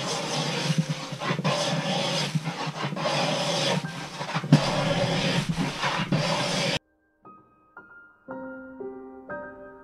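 Hand plane shaving a wooden board in repeated long strokes, a dense rasping hiss that cuts off suddenly about two-thirds of the way through. Soft piano music follows.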